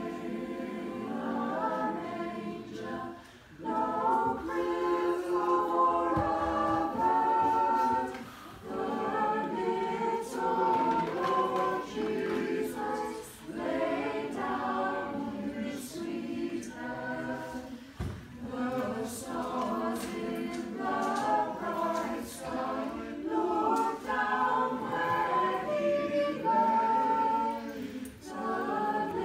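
Small mixed choir of men's and women's voices singing a Christmas carol a cappella, in phrases with short breaks between them.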